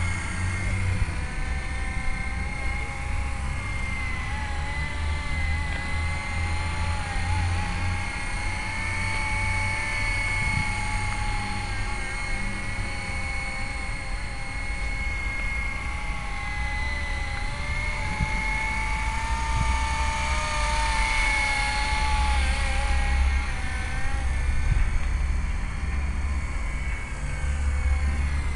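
Mini fixed-pitch RC helicopter in flight: a steady motor and rotor whine whose pitch drifts slowly up and down as the throttle changes, over a low rumble.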